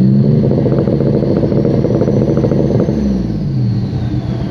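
Turbocharged V6 of a Holden VR Commodore ute revved hard through its exhaust, held high for a couple of seconds, then falling back toward idle about three seconds in. A turbo whistle rises with the revs and then winds down slowly as they drop.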